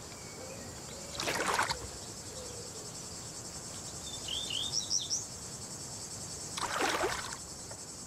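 A small bird splashing as it bathes in a shallow pool, twice, about a second in and again near the end, over the steady high chirring of crickets. In the middle comes a short run of quick bird chirps.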